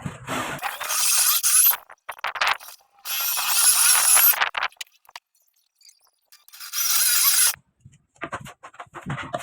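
A homemade table-mounted circular saw cutting wood in three short bursts, each a harsh rasp with a high, wavering screech from the blade. The bursts cut off abruptly.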